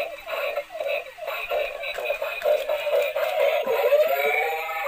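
Superman dancing robot toy playing its built-in electronic song through its small speaker, a sung melody with little bass.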